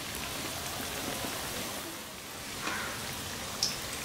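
Somas pastries deep-frying in hot oil in a pan, giving a steady sizzle. There is one sharp click near the end.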